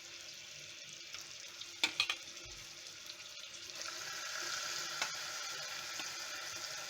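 Curd-marinated chicken sizzling in hot oil and masala in a pressure cooker pot, the hiss growing louder about four seconds in. Two sharp clinks come about two seconds in.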